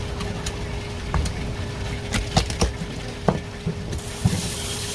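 Knife and fish being handled on a cutting board: scattered short knocks and scrapes, over a steady faint hum, with a brief hiss about four seconds in.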